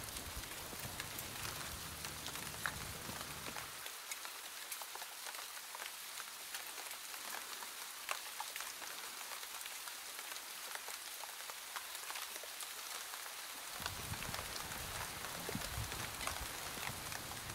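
Steady rain, a hiss dotted with the ticks of individual drops. A low rumble beneath it drops away for about ten seconds in the middle.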